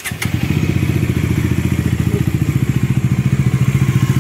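Bajaj Dominar 400's single-cylinder engine just started, catching in the first moment and settling into a steady idle with an even, rapid pulsing.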